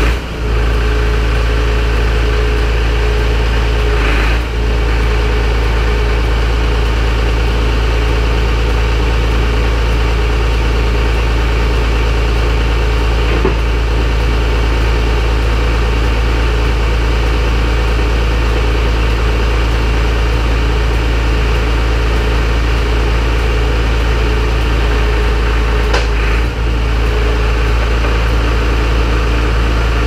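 Compact four-wheel-drive tractor's engine idling steadily just after being started, with a couple of brief knocks about four seconds in and near the end.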